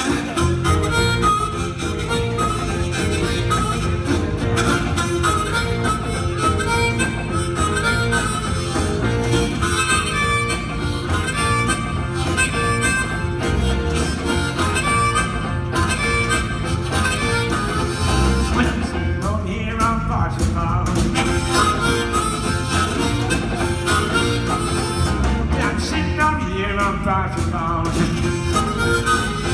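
Live blues band: harmonica played as the lead over electric bass, drums and electric guitar, with a steady beat.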